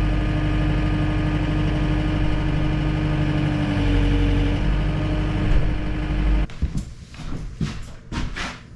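Tractor engine running steadily, then cutting off abruptly about six and a half seconds in, followed by a few knocks and clatters.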